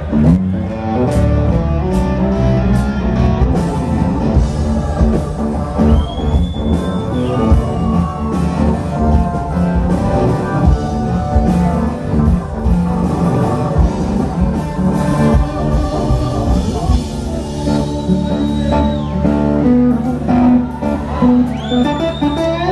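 Rock band playing live, electric guitar leading an instrumental passage over bass and drums. A high held guitar note bends up about six seconds in, and again near the end.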